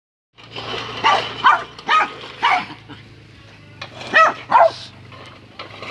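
Dog barking at a running lawnmower: about six barks, mostly in quick pairs, over the mower's low steady hum.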